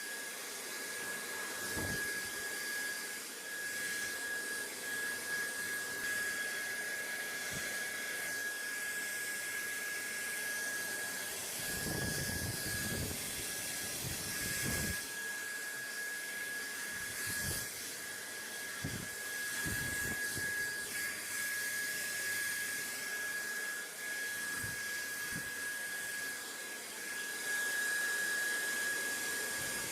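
Steady white-noise track: an even rushing hiss with a thin steady whine running through it, and a few soft low thuds scattered across it.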